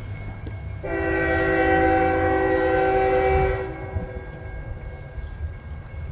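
Diesel locomotive horn sounding one long, chord-like blast of about three seconds, starting about a second in. Beneath it runs the steady low rumble of the slow-moving freight train.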